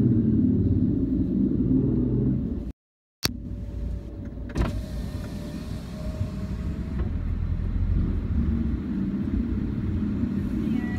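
Car engine and road rumble heard from inside the cabin as the car moves slowly, cutting out completely for about half a second around three seconds in. A click comes about a second and a half later, followed by a faint steady whine for about two seconds over a quieter rumble.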